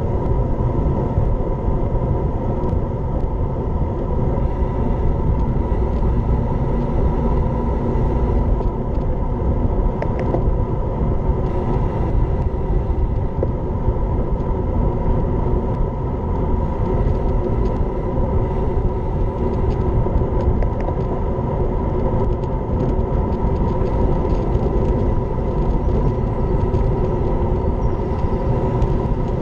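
Wind rushing steadily over the microphone of a bike-mounted action camera as a road bike rides at speed, a constant low rumble with no let-up.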